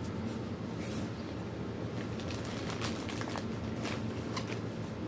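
Rustling and crinkling of clothes and packaging as a hand rummages in a backpack and pulls items out, a run of short irregular crackles over a low steady room hum.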